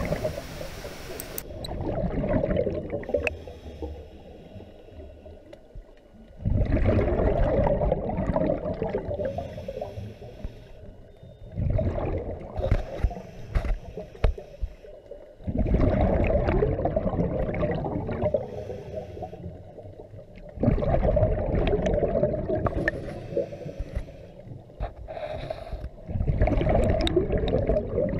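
Scuba diver breathing through a regulator underwater: exhaled bubbles gurgle out in a burst every four to five seconds, about six times, with quieter gaps between for the inhalations.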